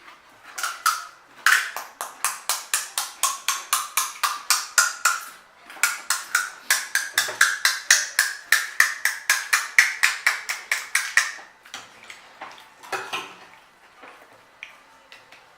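Close-miked chewing of crisp pani puri shells: a fast, even run of crunching clicks, about five a second, in two long runs, then a few scattered crunches near the end.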